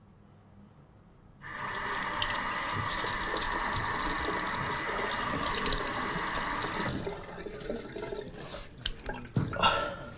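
Bathroom sink tap turned on about a second and a half in, water running steadily into the basin, then shut off about seven seconds in, followed by irregular splashing and dripping as water is brought up to the face.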